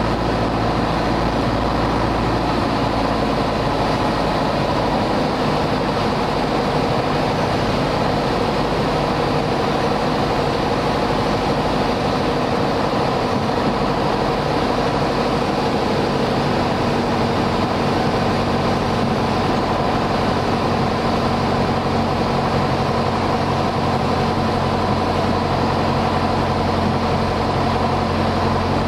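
Single-engine propeller airplane's engine and propeller running steadily, heard from inside the cockpit on final approach to landing, with the engine note shifting a few times as power is adjusted.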